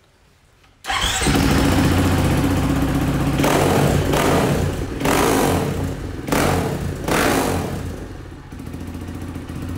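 KTM 450 single-cylinder four-stroke supermoto running through a freshly fitted FMF slip-on silencer, held on by a single screw for a sound test. It comes in suddenly about a second in and is blipped with the throttle several times, then settles lower near the end.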